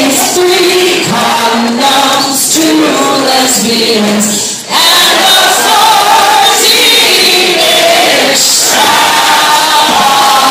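A group of voices singing a Christmas carol parody together, holding long notes in its second half.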